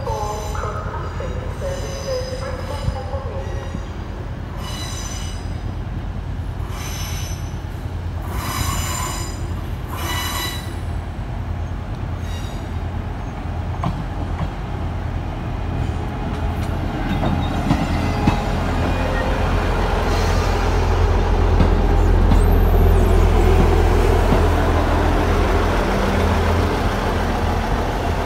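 Northern Class 158 diesel multiple unit drawing into the platform: its wheels squeal in repeated high bursts during the first ten seconds or so, then the deep rumble of its diesel engines builds as it comes close, loudest about three-quarters of the way through.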